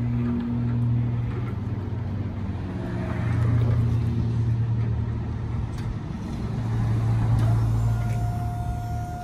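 Hyundai electric pallet truck running as it is driven by its tiller: a low motor hum that swells twice, with a thin steady higher tone coming in near the end.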